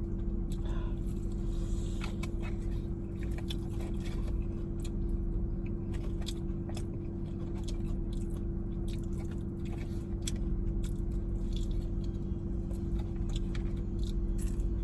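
Chewing and crunching of crispy KFC fried chicken wings, with many small crisp crackles, over a steady low hum from the car.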